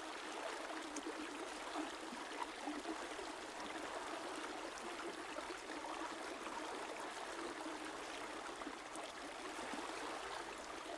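A river flowing, a steady babble of running water.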